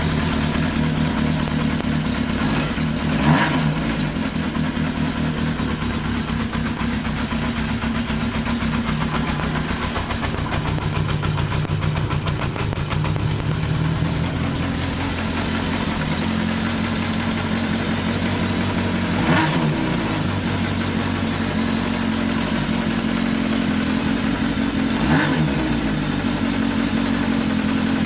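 1982 Kawasaki KZ750 LTD motorcycle engine idling just after its first start following a rebuild, blipped up and back down three times. The carburettors are not yet adjusted and it runs on temporary homemade air filters, so it still needs a lot of adjustment.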